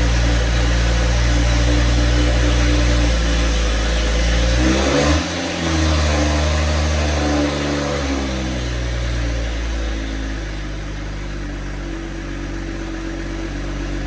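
BMW B58 inline-six engine idling just after being restarted on its freshly flashed stock map. About five seconds in the sound dips briefly and its pitch shifts, then it runs on steadily, settling a little quieter after about ten seconds.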